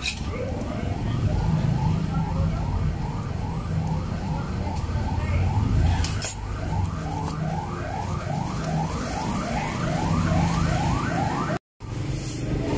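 An electronic siren sounding in fast, repeated rising sweeps, about three a second, growing louder toward the end, over a low rumble of engines and traffic.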